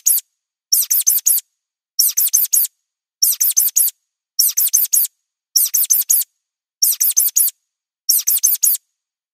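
Mouse squeak sound effect: quick runs of four high, falling squeaks, a run about every second and a quarter with silence between.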